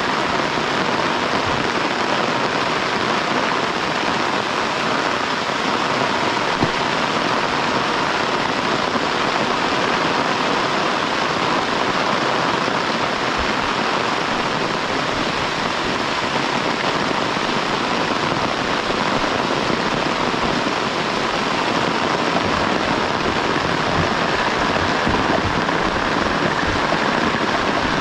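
Heavy rain falling steadily, a dense even hiss, with scattered soft low thuds.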